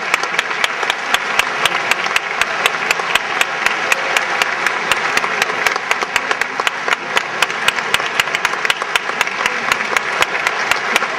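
A large audience applauding, the claps falling into a steady rhythm of about four a second.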